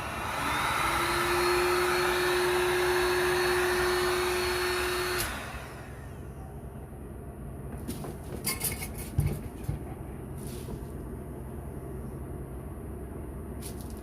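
Electric heat gun's blower running: a click, then the fan spins up to a louder, steady whir with a hum and a high whine. About five seconds in, another click and the motor winds down. A few light clicks and knocks follow.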